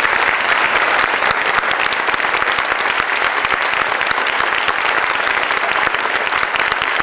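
Audience applauding steadily: a dense, even patter of many hands clapping, with no music under it.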